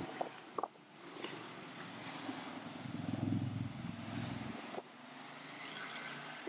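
Street traffic: a small diesel refuse truck rumbling past at low speed, loudest a little past halfway, after which the rumble cuts off abruptly.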